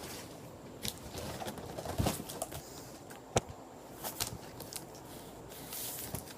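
Scattered light taps, clicks and rustles of cardboard shipping boxes and packaging being handled, with one sharper click about three seconds in.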